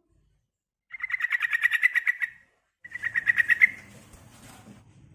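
Female sooty-headed bulbul (trucukan) calling: two runs of rapid, evenly repeated chattering notes, the first starting about a second in and lasting over a second, the second shorter.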